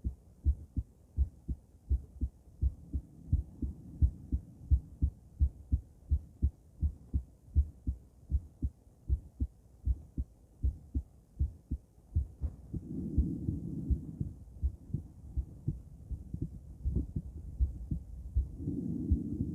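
A woman's heartbeat heard through a stethoscope: a steady, regular lub-dub of low thumps. Twice, about two-thirds of the way in and again near the end, a soft rushing noise rises under the beats.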